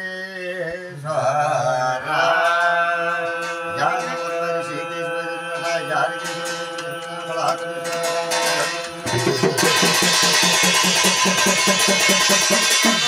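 A jagar singer chanting long, held sung lines over a few scattered hand-drum strokes. About nine seconds in, the drum breaks into a fast, steady, loud beat under the singing.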